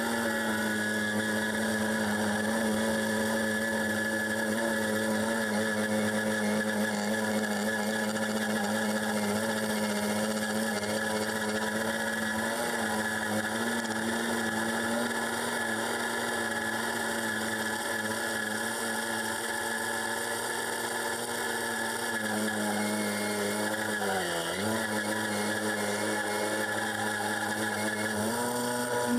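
Wood-Mizer LT10 bandsaw mill's Briggs & Stratton gas engine running steadily under load as the band blade cuts along a maple log. Its note sags briefly once, about 24 seconds in, then recovers.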